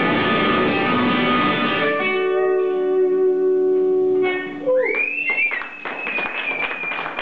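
Electric guitar playing thick, busy chords. About two seconds in, a chord is left ringing out. Past the middle, a note slides up into a high, held tone.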